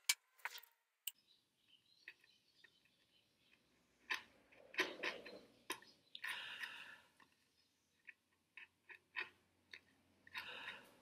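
Chisel paring the waste out of a hinge mortise in ash by hand: faint scattered clicks and short scrapes of the steel edge in the wood, the longest scrapes about five and six seconds in and again near the end.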